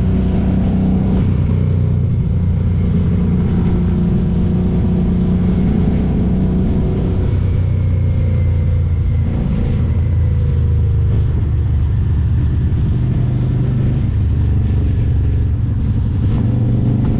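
Harley-Davidson Street 500's 500 cc V-twin engine running steadily under way through an aftermarket Vance & Hines exhaust, its note shifting in pitch a few times as the speed changes.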